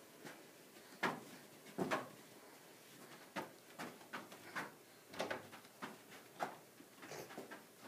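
Scattered knocks and thumps, about a dozen, irregularly spaced.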